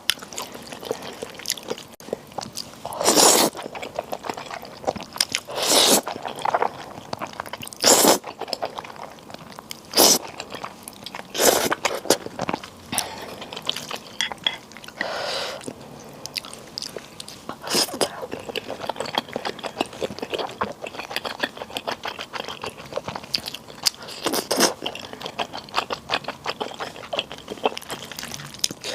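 Close-miked eating sounds: a person chewing and crunching food, with a run of small wet mouth clicks and about eight louder bursts a few seconds apart.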